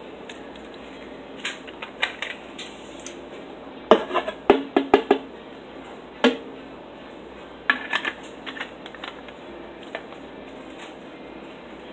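Hard household objects clinking and knocking together as they are handled, in scattered bursts, with a busy run of knocks about four to five seconds in.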